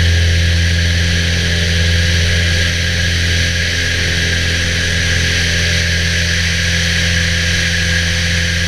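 Aviat Husky light aircraft's piston engine and propeller droning steadily in cruise flight, a deep even hum with steady wind rush over the airframe.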